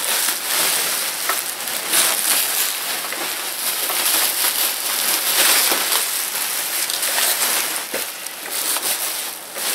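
Bubble wrap crinkling and rustling as it is pulled and torn away by hand. It makes a continuous crackle with a few sharper clicks.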